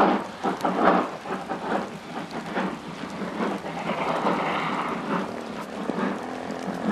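Two-cylinder DR class 50 steam locomotive 50 3648 working hard, its exhaust beats coming unevenly in a limping rhythm caused by a damaged valve (Schieberschaden). About four seconds in the beats blur into a stretch of steady hissing steam.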